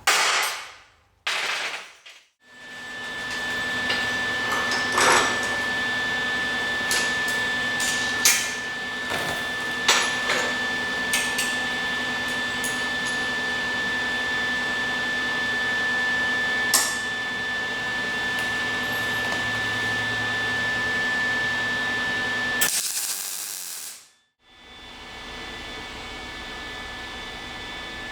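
A power tool running steadily with a constant high whine and a lower hum, with scattered sharp clicks of metal being worked. It stops about 23 seconds in, and a quieter steady whine follows.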